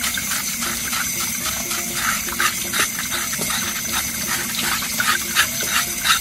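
Kitchen knife scraping the skin of a beef foot under a running tap: repeated short scrapes, about two or three a second, over the steady splash of water.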